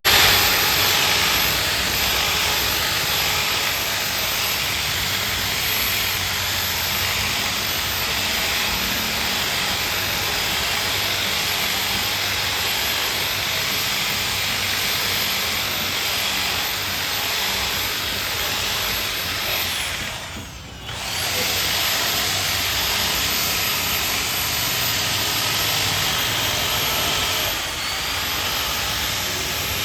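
Electric polishing machine running steadily with a high motor whine, buffing a plastic headlight lens; it eases off briefly about two-thirds of the way through and picks straight back up.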